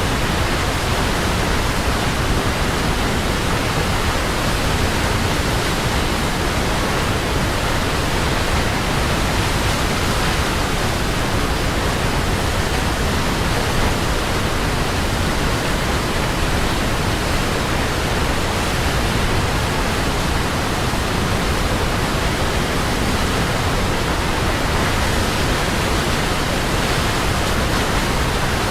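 A waterfall rushing steadily: an even, unchanging sound of falling water, deep rumble and hiss together.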